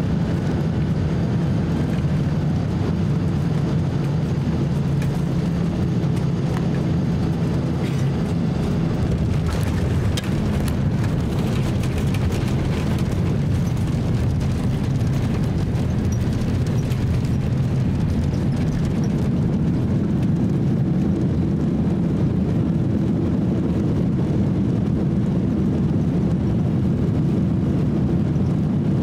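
Cabin noise of a Boeing 767-300 airliner landing, heard from a seat over the wing: a steady low engine and airflow rumble on short final, then touchdown and rollout on the runway. From about 8 to 19 seconds a rougher, hissing rush rises over the rumble, then settles back to a steady roll.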